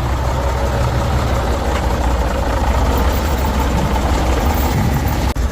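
Heavy diesel truck engine idling with a steady low rumble.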